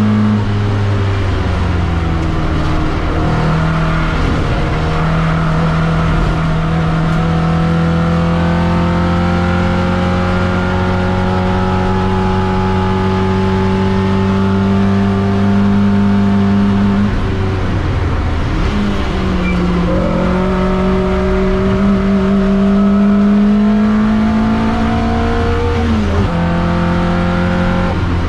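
TVR Vixen race car's engine at full throttle, heard from inside the cockpit. The revs drop with a gear change about a second in, then climb slowly for a long stretch. They dip with a lift and shift about two-thirds of the way through, climb again, and drop with another shift near the end.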